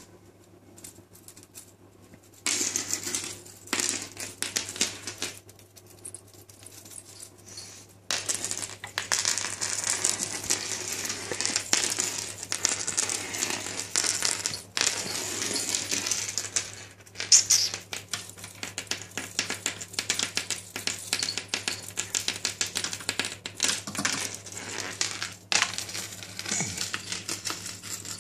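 Small metal rings hanging off a handheld laser pointer jingling in quick little clinks as the pointer is waved about. The clinking starts a couple of seconds in, stops for a moment, then runs on almost without a break.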